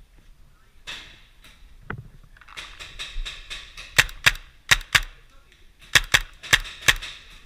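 Paintball markers firing: sharp pops in two quick runs of about four shots each, around four and six seconds in.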